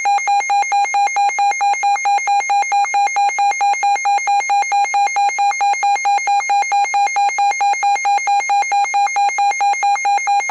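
Emergency alert attention tone: a loud electronic beep at one steady pitch, pulsing in a fast, even rhythm. It signals that an emergency alert message is about to follow.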